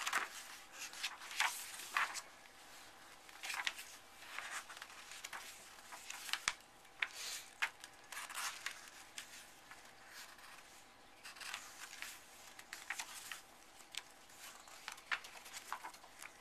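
Paper pages of a book rustling and being turned, in short scattered rustles and soft clicks.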